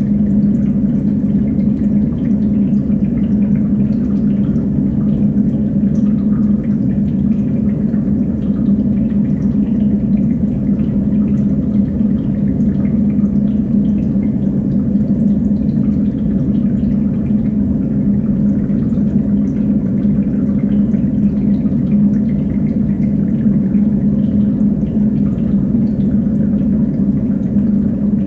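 Steady running and dripping water in a stacked recirculating fish-tank system, over a constant low hum from its pump.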